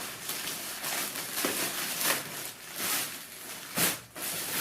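Packaging rustling and crinkling in irregular bursts, with a few sharper handling noises, as a box is opened and its contents are unpacked.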